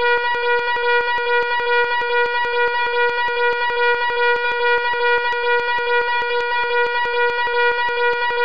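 Loud fire alarm sounding continuously: one steady pitched tone with a rapid, even ticking running through it.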